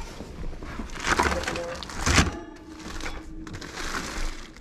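Handling noise from items being moved in a wire rolling cart: scattered clattering knocks and rustles, the loudest a sharp knock about two seconds in, over faint background voices.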